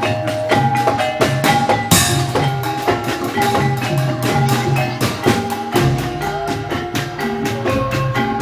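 Live incling accompaniment: a Javanese folk percussion ensemble playing fast, interlocking struck melody notes over a steady drum pulse, with a bright crash about two seconds in.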